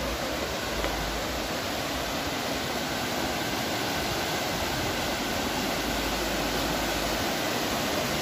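A river in flood, its fast, churning brown water rushing past in a steady, even noise. The river is overflowing its banks after hours of torrential rain.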